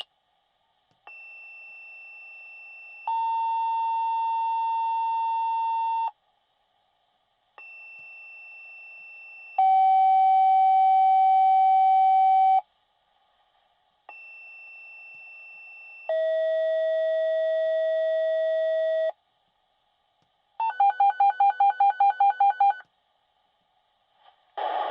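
Fire dispatch radio paging tones, sent to set off the fire companies' pagers before a call. Three sequential two-tone signals each pair a quieter high tone of about two seconds with a louder, lower tone of about three seconds, each pair at different pitches. They are followed by a rapid beeping alert tone, about five beeps a second for two seconds.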